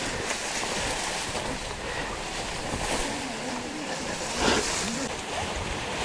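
Steady rushing wind noise on the microphone, with faint brief voice-like sounds about halfway through.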